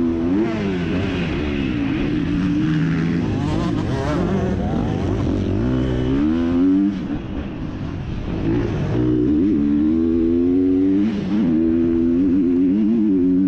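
MX2-class motocross bike engine revving hard, its pitch climbing and falling again and again as the throttle opens and shuts. It eases off briefly a little past halfway, then pulls back up.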